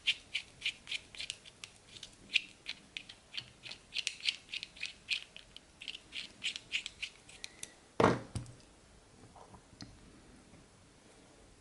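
Small rubber damper grommets squeaking against an M2 screw as they are twisted and pushed onto it, in a quick run of short, sharp squeaks about three a second. About eight seconds in, a single louder knock, then faint handling of small parts.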